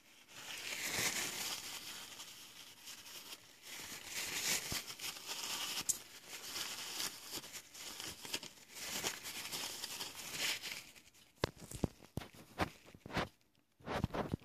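A paper towel rustling and scraping as it wipes metal chips off the milling vise and table, followed by several sharp clicks and taps near the end.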